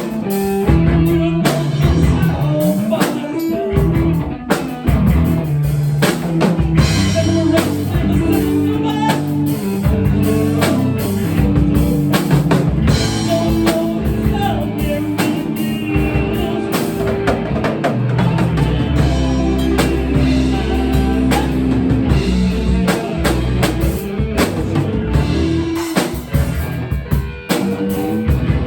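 Rock music played on drum kit and guitar, with steady, frequent drum hits.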